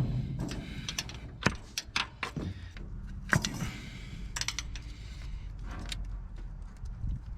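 Scattered clicks, knocks and small rattles of hands twisting and tugging at a stuck spark plug wire boot on an LS V8 engine.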